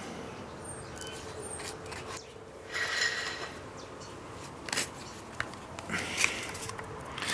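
Quiet handling sounds of hot-gluing a piece of plastic card onto a foam hatch: fingers pressing and rubbing the plastic down, with a few small clicks, a short rustle about three seconds in, and light knocks near the end as the glue gun is put down. A faint steady hum runs underneath.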